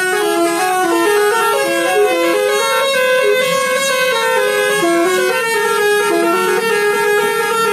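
Bus 'telolet' multi-tone air horn playing a fast, unbroken melody, its notes stepping up and down several times a second with a few tones sounding together.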